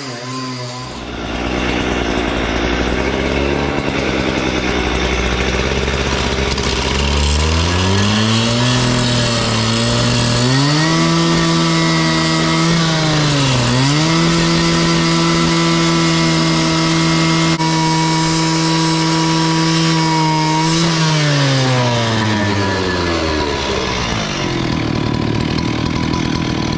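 Two-stroke petrol cut-off saw (a Stihl saw) cutting steel. It revs up from idle about eight seconds in and runs at high, steady speed with one brief dip in revs as the disc bites. Near the end it drops back to idle.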